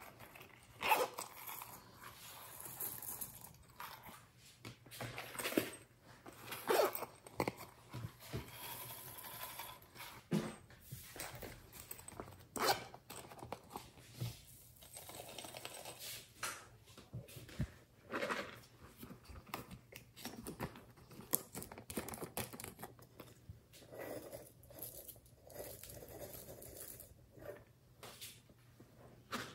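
Small beads, sequins and glitter being shaken out of plastic toy containers onto a tray of slime: irregular rattling, clicking and light pattering, with the plastic containers knocking and rubbing as they are handled.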